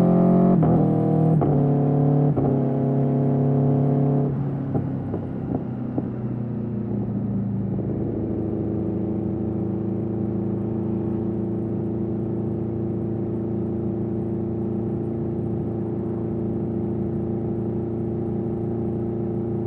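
Aprilia Tuono V4's V4 engine through an Austin Racing GP1R exhaust, revving up through quick upshifts, then the throttle closes about four seconds in with a few sharp cracks on the overrun. From about eight seconds it runs steadily at low revs.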